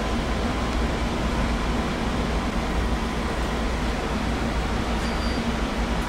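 JR 205-series electric train, a steady low rumble with a faint continuous hum.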